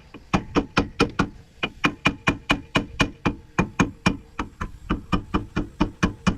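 Hammer striking the ears of a truck differential's pinion yoke, metal on metal, in quick regular blows of about four a second with a brief ring after each, with a short pause near one and a half seconds in. The blows are driving the yoke off the pinion splines.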